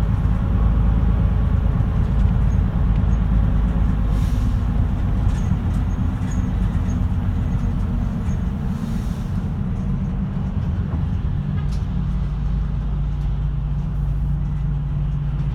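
Route bus's diesel engine running, heard from inside the passenger cabin, with a steady low rumble. Two short air hisses come about 4 and 9 seconds in, and the engine settles to a steadier tone past the middle.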